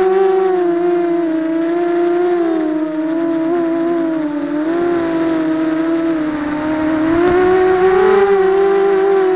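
Brushless motors and propellers of a ZMR250 racing quadcopter whining in flight, heard close from the camera mounted on the frame. The single steady pitch dips and rises with the throttle, climbing again about eight seconds in.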